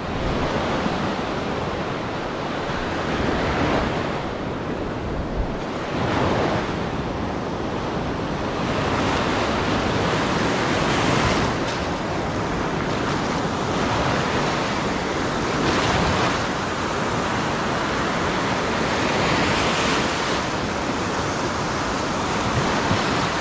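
Ocean surf breaking and washing in close by, swelling and easing every few seconds as each wave comes in, with wind on the microphone.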